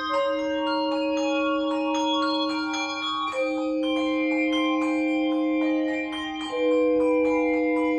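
Handbells and chimes playing a slow melody: clearly struck higher notes ring on, over a low note held throughout and a second held note that changes about every three seconds.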